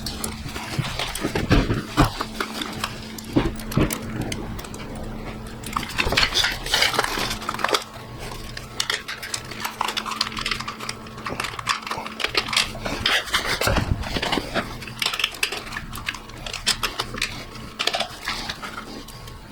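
Metal tools and engine parts clinking and clattering in irregular short knocks, with a faint steady hum under them.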